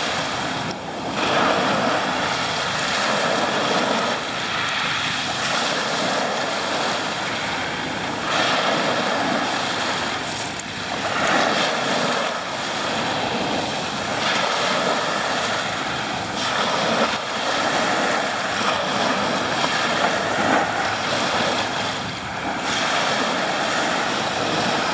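Sea waves washing onto a shore, a steady hiss that swells and eases every few seconds.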